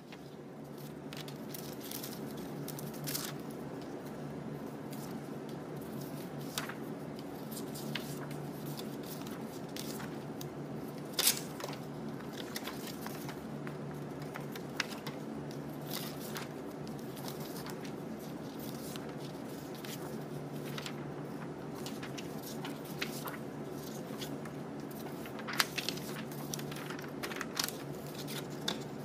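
Sheets of paper and card being handled and turned over inside a cardboard folder: dry rustles and crackles, with one sharper snap about eleven seconds in. A steady low hum runs underneath.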